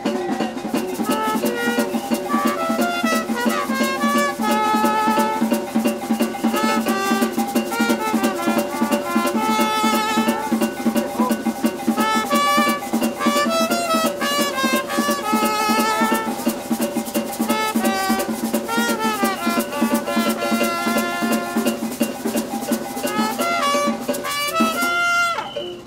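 Maracatu de baque solto band playing an instrumental passage between sung verses: clarinets carry a wavering melody over fast, dense percussion. A held note comes near the end, then the music stops abruptly.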